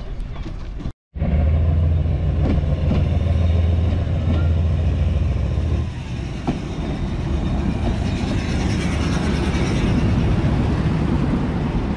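Narrow-gauge Lxd2 diesel locomotive running close by as it moves along the track, with a strong steady low engine hum that eases about halfway through.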